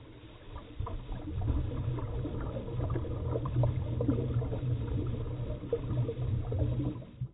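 Underwater sound picked up by a diving camera: a low steady rumble with many small irregular bubbling pops, typical of a scuba diver's exhaled regulator bubbles. It grows louder about a second in and cuts off abruptly at the very end.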